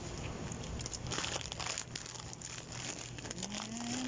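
Plastic crisp packets (Sunbites bags) crinkling as they are handled, in a burst of rustles about a second in.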